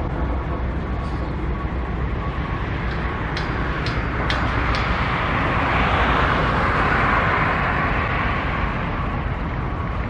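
Steady outdoor traffic-like rumble, swelling louder for a few seconds past the middle, with a few faint sharp clicks a little before that.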